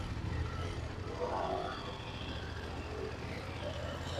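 BMW F 750 GS parallel-twin engine pulling away, the sound weakening after about a second as the motorcycle rides off.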